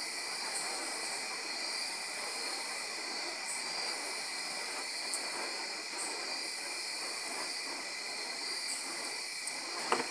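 Night insects chirring steadily at several high pitches, over a steady rushing hiss, with a couple of sharp clicks near the end.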